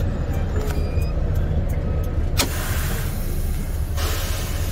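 MaxxForce 13 diesel engine of a semi truck running, a steady low rumble heard from inside the cab. A single sharp click comes about halfway through.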